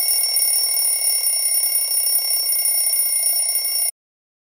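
A loud, steady electronic ringing tone made of several high pitches held together. It cuts off suddenly near the end.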